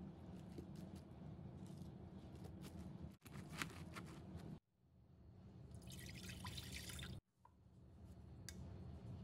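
Faint wet crackling and rustling of blanched beet leaves and stems being pressed into a glass bowl by hand, with small drip-like clicks. The sound breaks off abruptly a few times.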